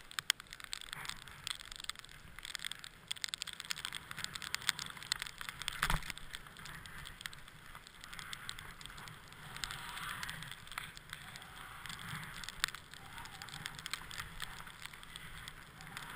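Skis running over snow: a crackling hiss dense with small clicks and scrapes, swelling and easing with the turns, with one sharper knock about six seconds in.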